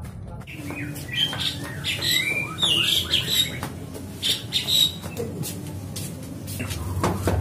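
Birds chirping and squawking: a flurry of short, quick rising and falling calls in the first half, thinning out later, with scattered sharp clicks.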